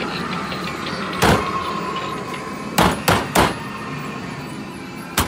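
Loud banging on metal: one strike that rings on briefly, then three quick bangs about a second and a half later, and one more near the end, over steady background noise.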